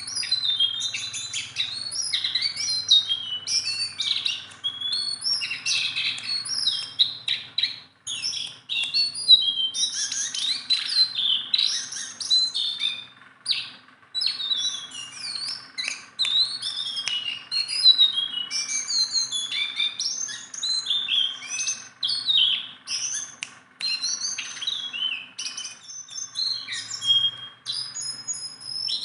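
A caged jongkangan songbird singing without pause: dense, rapid strings of high chirps and whistled phrases, the continuous singing that keepers call gacor.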